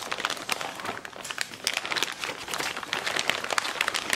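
Plastic bag of frozen salmon fillets crinkling as hands tear it open and rummage inside, pulling out the individually vacuum-sealed fillet packs; a dense run of irregular crackles.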